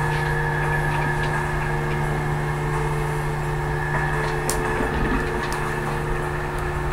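A vehicle engine idling with a steady hum, and a few light clicks about four and a half seconds in.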